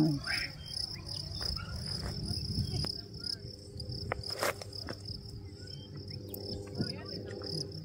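Insects trilling steadily in the grass, a continuous high-pitched buzz, with one sharp click about halfway through.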